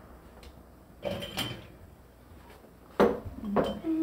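Utensils clinking and knocking against the soup pot and glass canning jars as hot soup is ladled through a canning funnel into pint jars. There are a couple of light, ringing clinks about a second in, then louder knocks about three seconds in.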